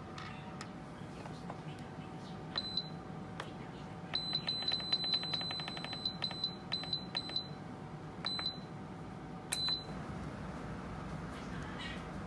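Control panel of a Shop Japan Cooking Pro electric pressure cooker beeping as its buttons are pressed: a single beep, then a fast run of beeps as the cooking time is set, then several more single beeps.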